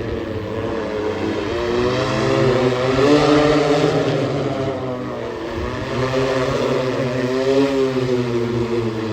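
Car-sized multirotor drone's propellers running, a steady hum of several pitches that waver up and down together, swelling about three seconds in and again near the end.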